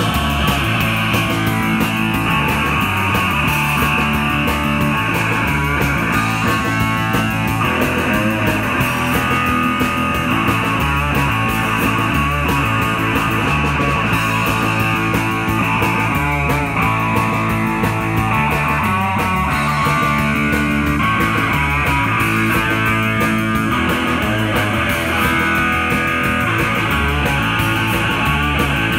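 A rock band playing live: electric guitar, bass guitar and a drum kit in a steady instrumental passage, with no singing.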